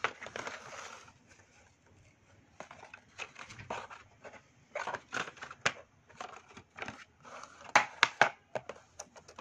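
A paperboard pen box with a clear plastic window being handled and turned over by hand: crinkling, rustling and a scatter of light clicks and taps, with the sharpest clicks about eight seconds in.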